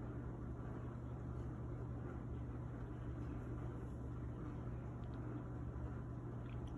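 Room tone: a steady low hum under faint hiss, with a couple of faint ticks near the end.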